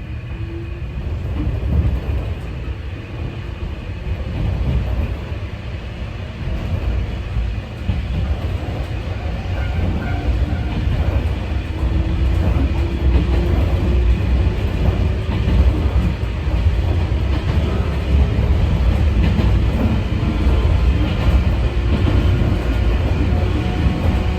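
Inside a Sangi Railway 801 series electric train (ex-Seibu 701 series), heavy running rumble with a faint traction-motor whine that climbs slowly in pitch as the train picks up speed.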